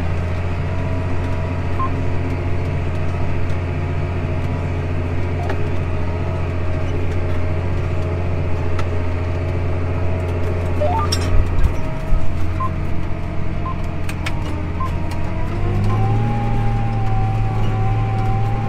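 John Deere 8400 tractor's six-cylinder diesel engine running steadily under load while pulling a grain drill, heard from inside the cab. A few knocks and clatters come partway through. Near the end the engine note rises and holds higher.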